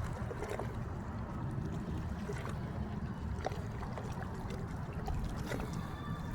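Water lapping and trickling, with small splashes and drips over a steady low rumble.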